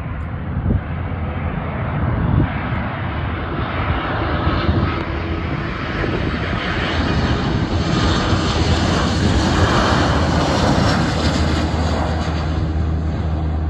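Sun Country Boeing 737-800's CFM56-7B jet engines during landing: a steady jet roar that grows louder as the airliner comes over the fence and touches down, loudest about two-thirds of the way through as it rolls out on the runway, then easing slightly.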